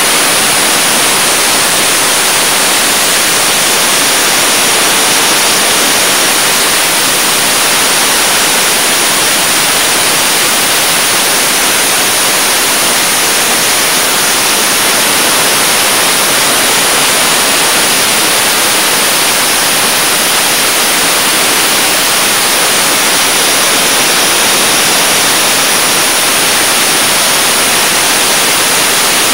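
Dustless (wet abrasive) blasting nozzle spraying a water-and-abrasive stream against an aluminum boat hull for surface prep: a loud, steady hiss.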